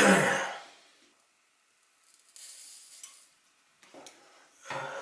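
Soldering iron sizzling on flux-cored solder at a wire joint, in short hissy spells. The loudest of these is a sharp noisy burst at the very start that fades within about a second.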